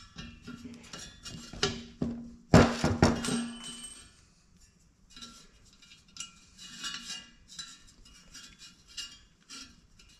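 Metal clinking and rattling as a wrench works at the tight set screw on the fan blade hub of a garage heater's blower motor, with a louder cluster of clanks about two and a half seconds in.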